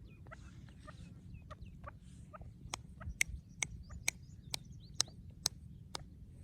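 Grey francolin calling: a run of short, sharp, clucking notes about two a second, growing louder in the second half.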